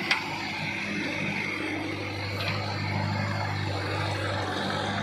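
Mahindra Arjun Novo 605 DI tractor's diesel engine running steadily, with a sharp click just after the start.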